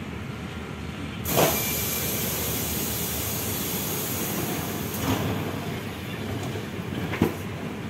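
Metro train standing at a station: a sudden hiss of compressed air about a second in as the carriage doors open, running steadily for a few seconds. A sharp click comes near the end.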